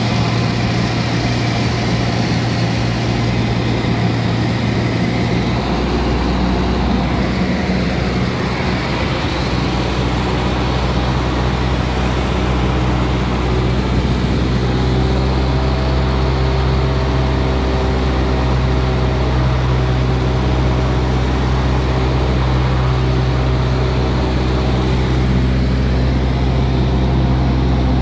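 Light aircraft's engine and propeller drone heard inside the cabin in flight: a loud, steady hum. The lowest part of the hum shifts about six seconds in.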